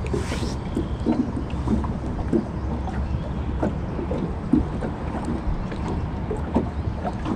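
Water lapping and slapping against the side of a small fishing boat in short, irregular splashes, over a steady low rumble of wind on the microphone.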